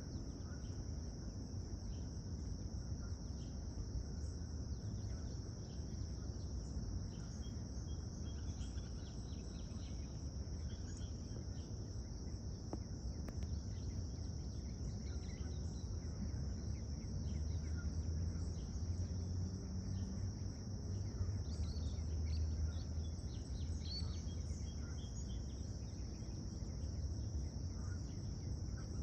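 Steady, unbroken high-pitched insect chorus, with a constant low rumble underneath.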